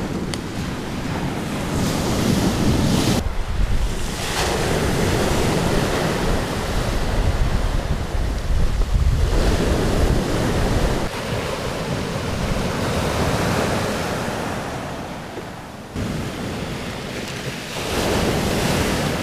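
Rough surf breaking and washing on a shingle beach, with strong wind buffeting the microphone. The sound swells and falls, and drops off suddenly twice, a few seconds in and near the end.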